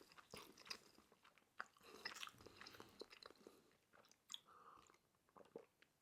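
Faint chewing of food, with soft scattered crunches and mouth clicks.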